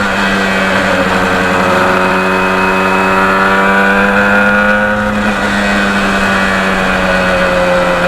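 Yamaha RD400's two-stroke parallel-twin engine running steadily, its pitch creeping up and then dipping about five seconds in.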